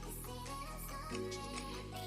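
Background music with a steady beat and a sustained bass line; the bass note changes about a second in.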